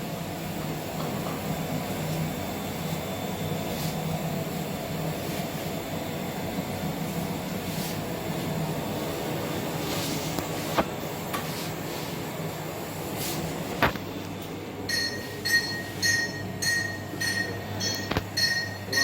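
Graphite-furnace atomic absorption spectrometer running its furnace clean cycle: a steady hum of the instrument with a few sharp clicks. Near the end comes a run of short, evenly repeated beeps, about two a second.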